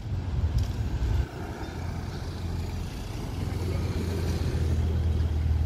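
Porsche 911's flat-six engine running at low revs as the car creeps across cobblestones, a low steady drone that grows louder toward the end.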